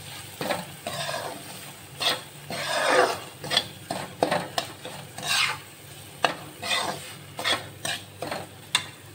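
Slotted steel spatula stirring and scraping semolina roasting in hot ghee in a black kadhai (wok), the first stage of making sooji halwa. There are irregular scrapes against the pan, about one or two a second.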